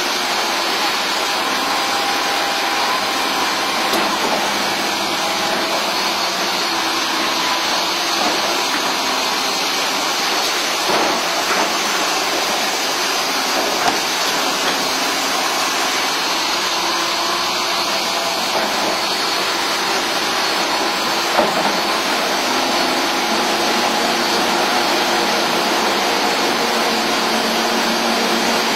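Pile-drilling rig running steadily, a constant hissing mechanical noise of engine and hydraulics while the drilling bucket works the hole and lifts out soil, with a few faint knocks.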